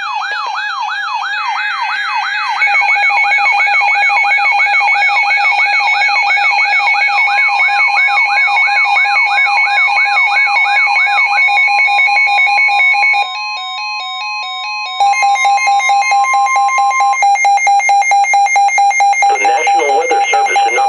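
Layered electronic alarm and siren tones. A wailing siren rises and falls about twice a second over rapid beeping patterns, then gives way to a steady single tone and fast pulsing beeps. A weather-radio announcer's voice begins near the end.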